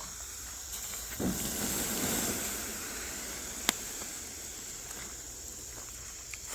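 Bonfire hissing steadily, with one sharp pop a little past halfway.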